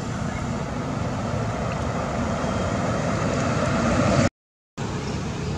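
Steady outdoor background hiss with no distinct events, dropping out to dead silence for about half a second near the end.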